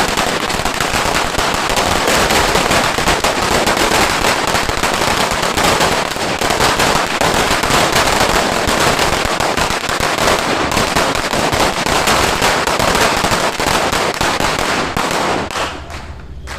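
A Dreamlight sawa, a long belt of 3,000 salute firecrackers, going off in a dense, continuous crackle of rapid bangs. Near the end it thins to a few last pops and stops.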